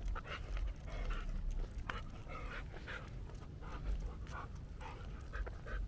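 A dog panting on a walk, with a low steady rumble underneath.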